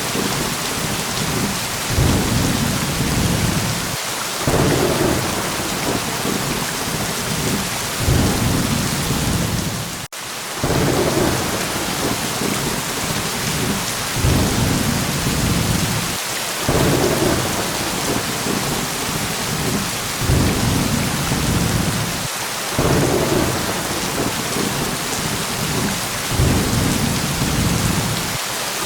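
Steady heavy rain hissing, with low thunder rumbles swelling and fading every few seconds. The sound cuts out for an instant about ten seconds in.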